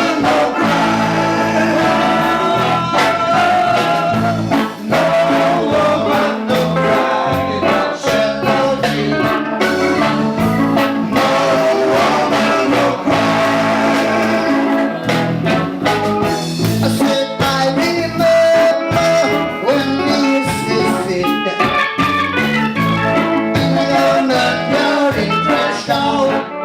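Live reggae band playing a jam, with a steady beat, guitar, and a melodic lead line on top.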